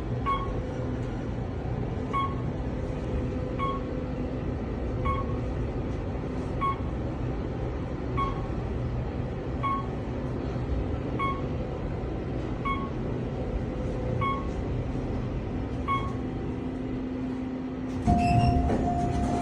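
Otis elevator car travelling upward: a steady motor hum and rumble with a short electronic beep repeating about every second and a half as it passes floors. Near the end a thump and a held chime tone as the car arrives.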